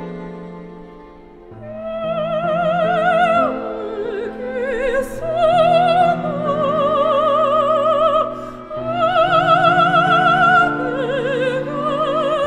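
Classical background music: operatic singing with wide vibrato over sustained accompaniment. The voice comes in about a second and a half in, after a brief lull.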